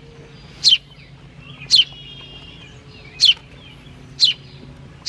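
Baby sparrow chirping: about five short, high chirps, each falling in pitch, repeated roughly once a second.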